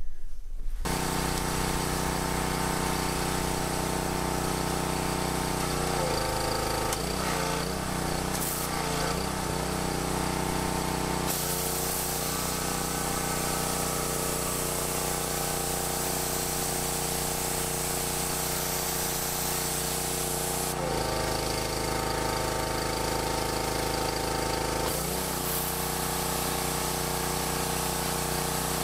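Pressure washer running, with the hiss of water jets from a water broom's nozzles spraying under a truck onto concrete. Its pitch and hiss shift several times, about six, eleven, twenty-one and twenty-five seconds in.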